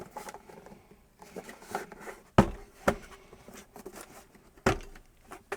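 Light handling noises: scattered soft clicks and knocks of parts being moved about on a work surface, with two heavier knocks about two and a half and four and a half seconds in.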